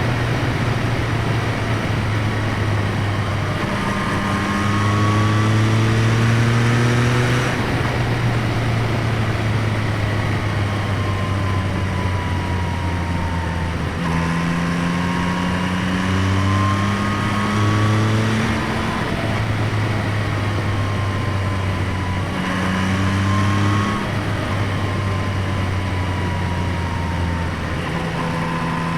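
2025 Yamaha MT-09's 890 cc inline three-cylinder engine, heard through its intake airbox and exhaust, pulling under throttle. Its pitch climbs slowly, then drops back sharply several times, as at gear changes.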